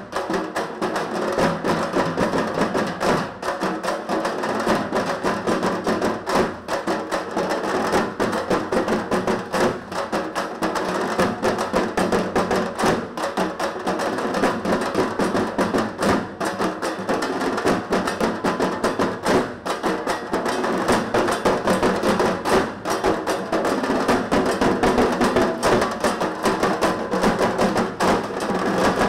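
An ensemble of dhak, large Bengali double-headed barrel drums, beaten with thin sticks in a dense, continuous rhythm of rapid strokes.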